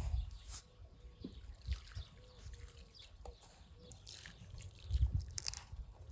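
Salt sprinkled by hand into a wide cast-iron pan of broth, landing in a light patter, among soft knocks and low thumps; the loudest thump comes about five seconds in.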